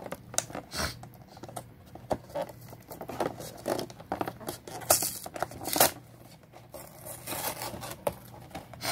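Pokémon TCG Orbeetle V box packaging being opened by hand: irregular tearing, crinkling and scraping with small clicks, and two louder strokes about five and six seconds in.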